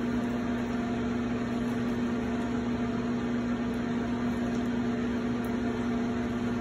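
Electric potter's wheel motor running at a steady speed, a constant hum with no change in pitch.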